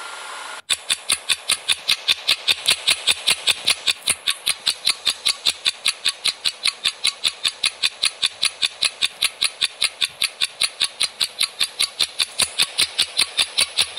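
Quiz countdown-timer sound effect: rapid, even ticking, roughly four and a half ticks a second, starting just under a second in as a steady hiss cuts off.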